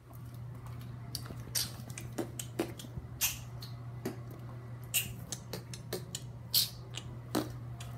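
Handling noise of a tablet being carried and moved about: irregular sharp clicks and knocks, the loudest a little past the middle and near the end, over a steady low hum.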